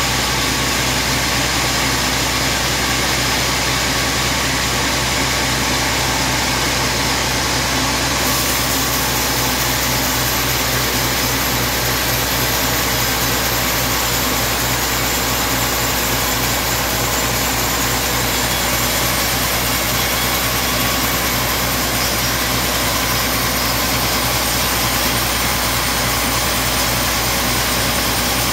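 Large log band saw running steadily, an even, unbroken machine drone with no pauses.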